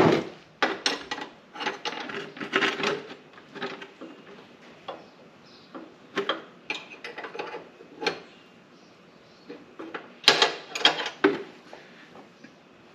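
Scattered short metallic clicks, knocks and rattles of hands working at the oil drain hose fitting under a zero-turn mower's engine, trying to get it loose by hand. The loudest knocks come about ten to eleven seconds in.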